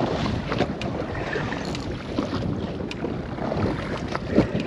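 Wind buffeting the microphone and water sloshing against a small boat at sea, with scattered faint clicks and knocks.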